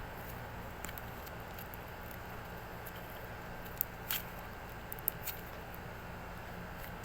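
Small handling sounds: a few brief clicks and soft squishes over a steady background hum, the loudest clicks about four seconds in and again about five seconds in.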